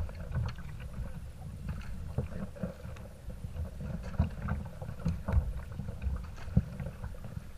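Sea kayak being paddled through choppy water: irregular splashes of the paddle and the waves slapping the bow, over a low rumble of wind on the microphone.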